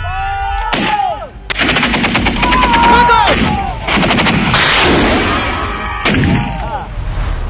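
Long bursts of rapid automatic weapons fire, shot after shot in quick succession, with a further loud burst in the second half.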